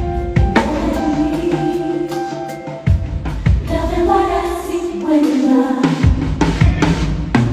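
Live band playing: drum kit hits over held keyboard chords, with bass notes in the low end.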